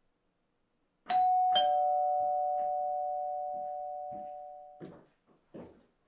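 Two-note ding-dong doorbell chime: a higher note, then a lower one about half a second later, both ringing on and fading away over about three seconds. A few soft thuds follow near the end.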